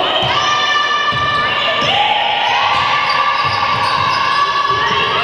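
A basketball bounces on the sports-hall court as a player dribbles, giving dull thuds about once a second. Over it are loud, long-held pitched tones that shift pitch a few times.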